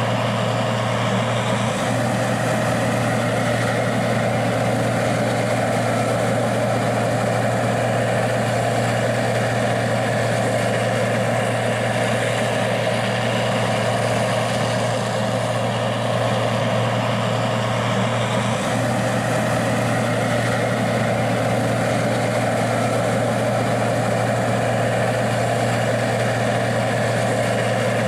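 Gleaner R60 combine's diesel engine running steadily with a constant low hum.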